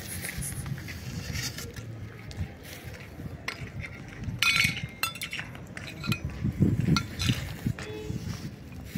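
Light metallic clinks of a metal food bowl, scattered among scuffs and handling noise.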